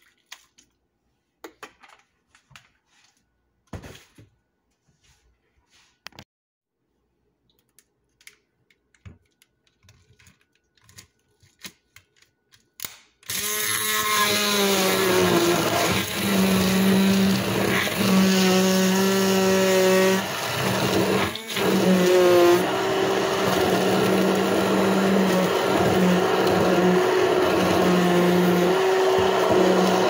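Faint scattered clicks and taps, then about halfway through a handheld immersion blender switches on and runs loudly, blending ice, banana chunks and milk in a plastic beaker. Its motor hum is steady apart from one brief break.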